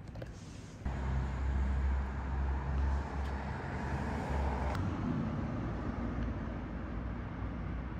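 Motor vehicle running: a steady low engine rumble with road noise, stepping up in level about a second in.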